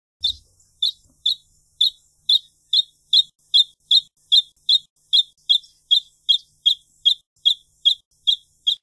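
Wrentit singing a long series of short, sharp notes, repeated evenly at about two and a half a second after a slightly slower start.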